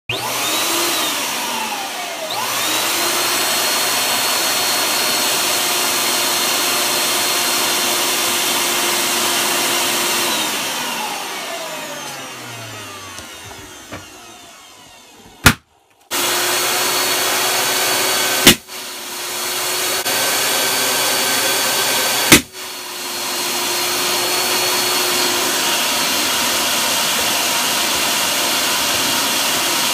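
An electric balloon inflator runs with a steady whine, then winds down to a stop about ten to fourteen seconds in. Soon after, with the inflator off, a latex balloon pops loudly once, the nail pop of an old defective balloon. The inflator then starts again, and two over-inflated latex balloons burst with loud bangs while it runs.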